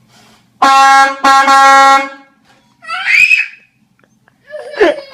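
A handheld air horn blasts twice in quick succession, each a loud, steady, blaring tone. A person then yells out, startled, and cries out again near the end.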